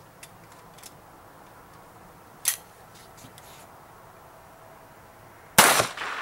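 Light clicks of a SIG Sauer Mosquito .22 pistol being handled, with one sharper click about two and a half seconds in, then a single .22 Long Rifle pistol shot near the end, its echo trailing off.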